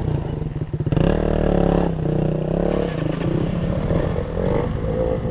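Motorcycle engine running close by, picking up revs about a second in and then settling back to an uneven idle.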